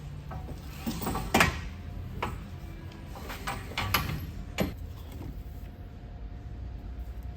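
A few short knocks and clicks over a steady low rumble.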